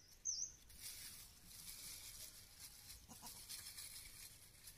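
Faint rustling of a plastic bag rubbed over a young goat's coat, with one short high chirp near the start.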